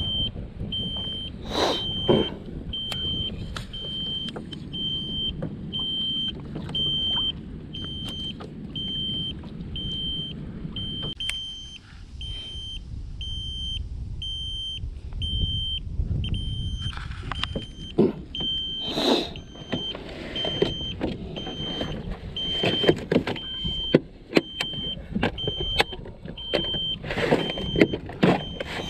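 Wind buffeting the microphone, strongest in the first ten seconds or so, under a short high electronic beep that repeats evenly throughout. In the second half, small clicks and rattles of fishing tackle being handled.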